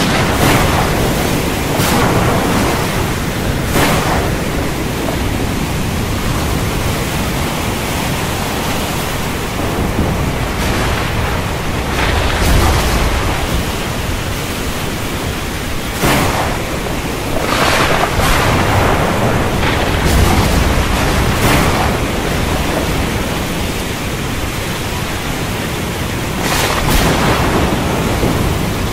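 Thunderstorm at sea: a steady rush of heavy rain, wind and waves, broken by repeated sharp cracks and a couple of deep rolling rumbles of thunder.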